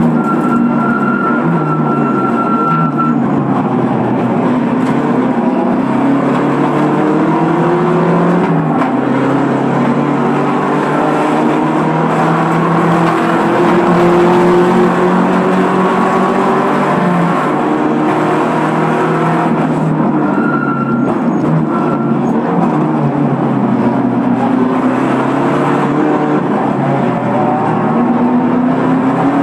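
Race car engine at racing speed, heard from inside the cabin, its pitch climbing and dropping again and again as the driver accelerates, shifts and brakes. A short high squeal sounds near the start and again about two-thirds through.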